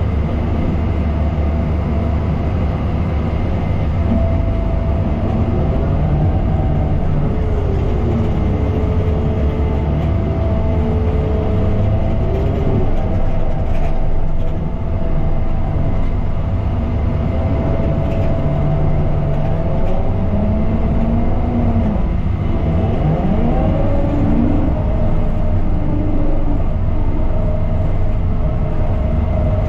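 Heavy earthmoving machine at work: its engine runs steadily and loudly, with whining tones that glide up and down several times as it moves and works.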